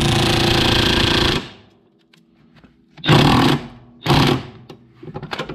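Impact wrench hammering on a rusty rear shock absorber top nut through a socket extension, trying to break it loose. There is one burst of about a second and a half, then two shorter bursts about three and four seconds in.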